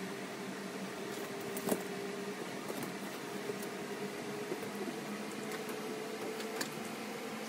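A steady machine hum with a faint hiss, broken by two sharp light clicks, one about a second and a half in and one near the end, as flat white plastic wardrobe panels and a paper sheet are handled.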